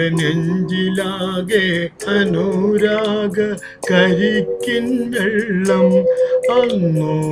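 A man singing a Malayalam film song over a karaoke backing track, holding long notes that waver slightly.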